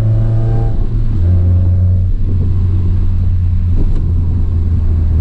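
Honda Prelude's four-cylinder engine droning steadily while the car is driven, its pitch stepping down about a second in and again about two seconds in.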